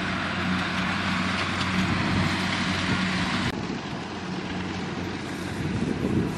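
Diesel engine of a Kubota walk-behind power tiller running steadily with an even hum. A loud outdoor hiss over it drops away about halfway through.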